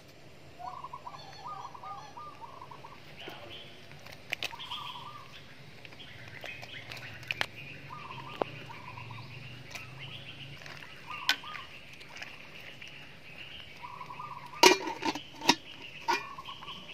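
Birds calling repeatedly in short warbling phrases, with a low steady hum underneath. Several sharp metal clinks from the cooking pot and its lid come through, with the loudest cluster shortly before the end.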